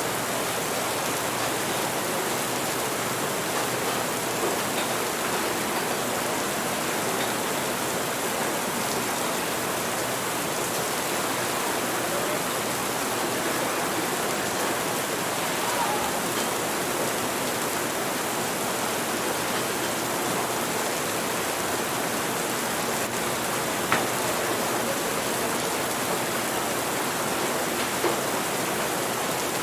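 Steady, even rain hiss, with two short sharp clicks near the end.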